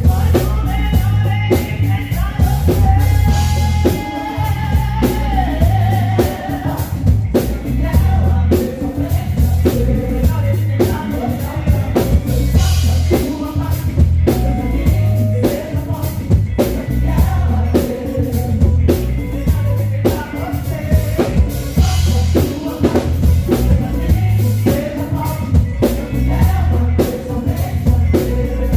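Church worship band playing a song: singing over drum kit and bass guitar, with a steady beat.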